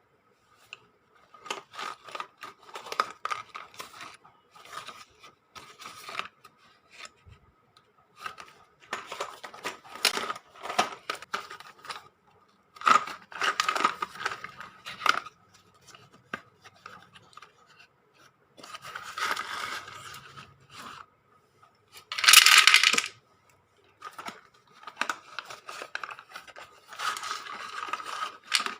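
Slate pencils being unpacked by hand: packaging rustled and torn, and the thin stone pencils clicking and clattering against one another, in bursts with short pauses between.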